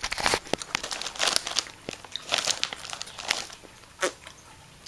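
Snack bag crinkling in several short bursts, mixed with the crunch of a crunchy snack being eaten.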